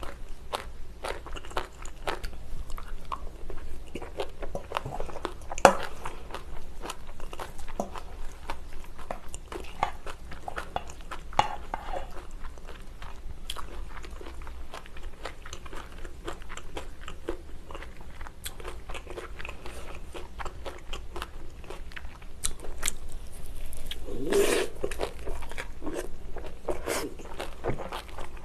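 Close-miked chewing of bibimbap: many small wet mouth clicks and soft crunching, steady throughout, with a louder stretch about 24 seconds in.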